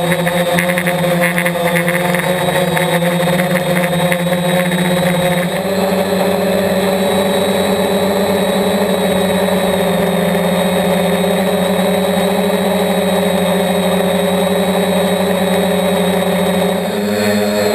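Multirotor drone's electric motors and propellers whining steadily in flight. The pitch steps up about five seconds in and again near the end as the throttle changes.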